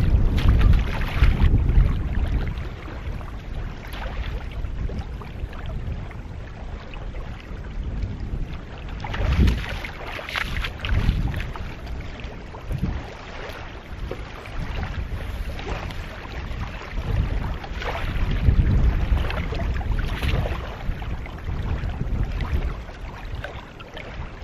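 Wind buffeting the microphone, with gusts rising and falling, and intermittent splashing of shallow water as a person wades in gumboots.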